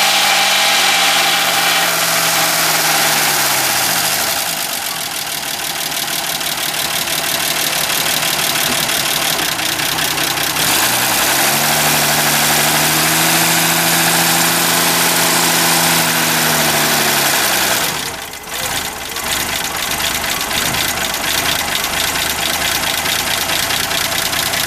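1965 Ford Mustang engine running with a rapid, steady ticking, which the owner takes for a bad lifter. The revs settle at the start, rise around the middle and fall back, and the owner also hears a marble-like rattle at high revs. The sound briefly dips a few times about eighteen seconds in.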